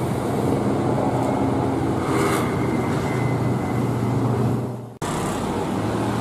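Road traffic on a coast road: car engines running with a steady hum over tyre and road noise. The sound dips and breaks off abruptly about five seconds in, then the traffic noise carries on.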